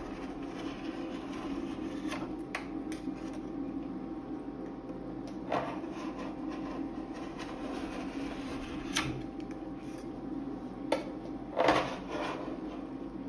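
Metal spatula scraping and rolling thin frozen ice cream along a stainless-steel cold plate, with a few sharp scrapes and taps of the blade, the loudest near the end, over a steady low hum.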